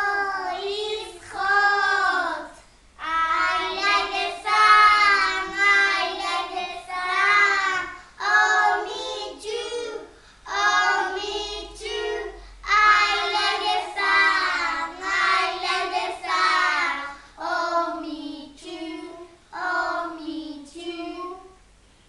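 Young children singing a song in short phrases with brief pauses between them.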